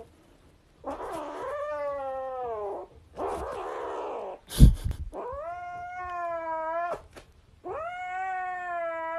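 Grey kitten yowling in long drawn-out calls, three of them, with a rougher, noisier call between the first two. A sharp thump about halfway through is the loudest moment.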